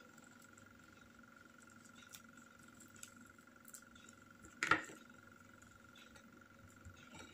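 A few faint ticks of handling, then a kitchen knife set down on a wooden tabletop with one short clatter about four and a half seconds in. A faint steady high tone runs underneath.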